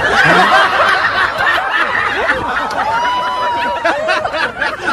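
A crowd of onlookers laughing and chattering, many voices at once, with one voice holding a long high note around the middle.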